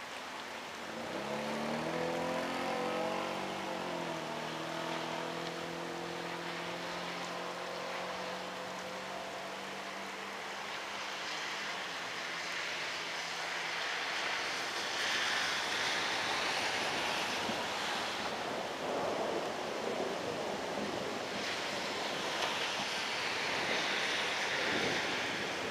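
An outdoor warning siren winds up in pitch, then slowly winds down and dies out about fourteen seconds in, over a steady hiss of rain and wind. The hiss swells twice in the second half.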